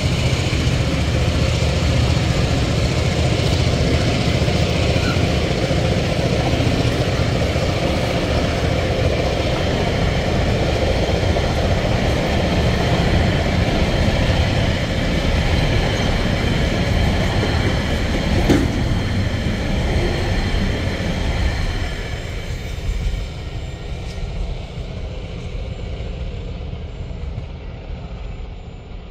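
Freight train rolling past over a level crossing: a steady rumble of wheels on rail, with one sharp click about eighteen seconds in. It fades away over the last several seconds as the train moves off.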